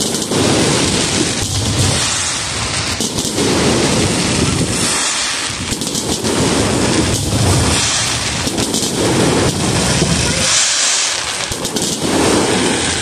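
Fireworks display going off: a loud, dense, continuous crackle of bursting stars with repeated low booms every second or two.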